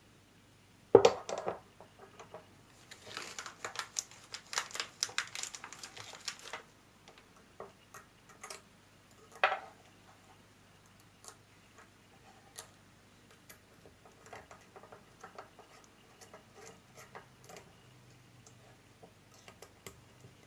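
Steel chuck parts and small screws handled on a wooden bench: a sharp metal knock about a second in, a few seconds of dense clicking and rustling, a second knock about halfway, then scattered light ticks as the jaw screws are fitted.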